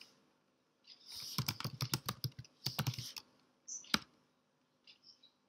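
Computer keyboard keys typed in quick bursts, then one single sharper keystroke about four seconds in.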